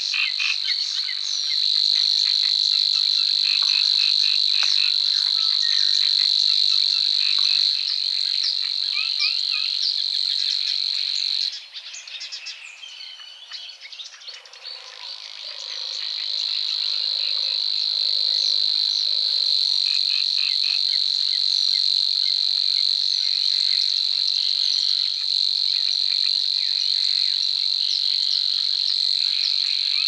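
Savi's warbler singing its reeling territorial song: a dry, insect-like chirring trill held at one steady pitch for long stretches. It breaks off about eleven seconds in and starts again some three seconds later, with faint short chirps behind it.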